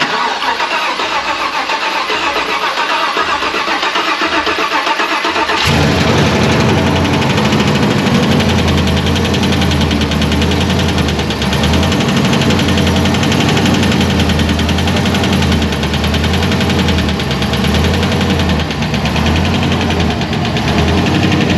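Supercharged GM LS V8, fitted with an LT4 blower and a new cam, cranking on the starter for about six seconds, then catching and settling into a steady idle. This is its first start after the cam and blower install.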